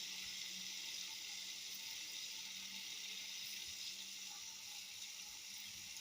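Steady hiss of running water, with a faint low hum underneath.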